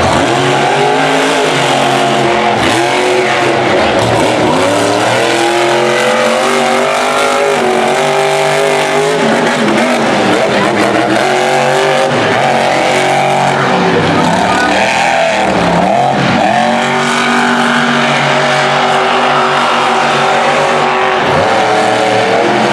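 Monster truck engine revving hard, its pitch rising and falling again and again as the throttle is worked, with deeper dips in pitch in the middle.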